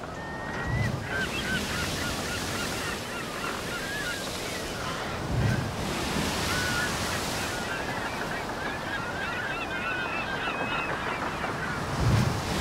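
Beach ambience: surf washing in and out, each wave arriving with a low thump about every five seconds, under a flock of birds giving many short, wavering calls throughout.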